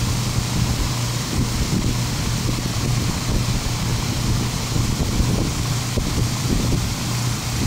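Steady rushing background noise with a constant low hum underneath, and no distinct events.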